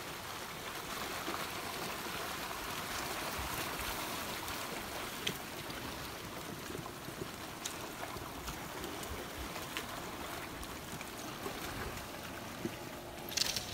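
Flash-flood debris flow of muddy water and sediment carrying logs and branches, a steady rushing and gurgling. A few sharp clicks come through it, the loudest near the end.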